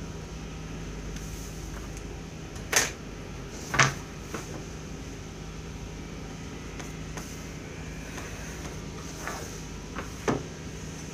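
Drafting tools, set squares and a ruler, set down on a drawing table: two sharp clacks about a second apart, then a few lighter taps near the end, over a steady low hum.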